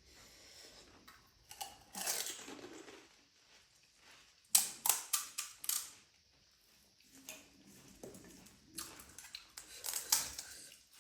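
Crisp panipuri shells crunching as they are bitten and chewed, in three bunches of sharp crunches: about two seconds in, around the middle, and again near the end.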